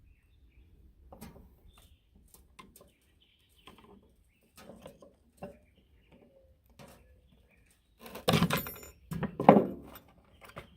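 Small metal parts of a bench vise clicking and tapping as it is reassembled by hand, with a louder clatter of metal on metal about eight seconds in.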